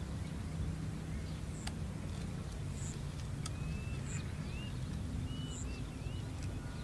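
Outdoor ambience: a steady low rumble with a couple of sharp clicks of wire being twisted with pliers, and a bird giving a run of short whistled chirps in the second half.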